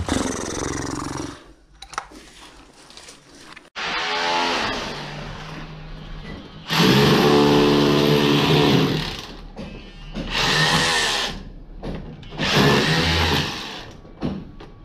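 Electric rotary hammer with a chisel bit, run in bursts against blockwork to chip out mortar and rubble from the wall cavity. It speeds up about four seconds in, runs at its loudest for a couple of seconds a little past the middle, then gives two shorter bursts near the end.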